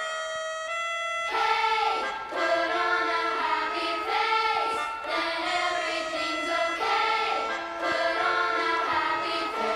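Background music: a song with a singing voice that comes in over held synth-like notes a little over a second in.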